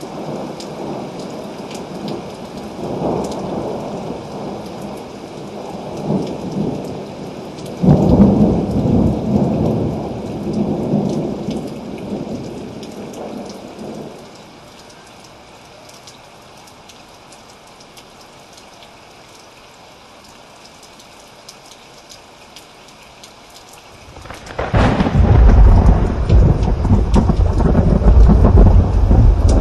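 Heavy rain with thunder: a long rolling rumble that builds and peaks with a sharp loud clap about eight seconds in, then fades to steady rain alone, before a loud, deep clap of thunder breaks out near the end.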